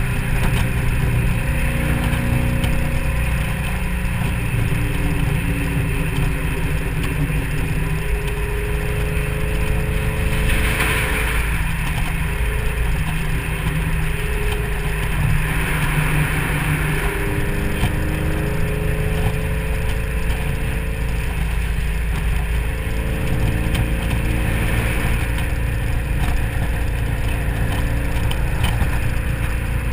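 Supercharged 4.6-litre V8 of a 2003 SVT Mustang Cobra cruising at highway speed, its engine note shifting a little now and then. Heavy wind and road noise come in through the open convertible top.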